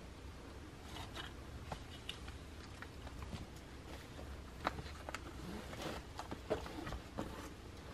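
Faint handling sounds of a leather cash binder being picked up and unfastened: scattered soft taps and rustles, with a few sharper clicks in the second half.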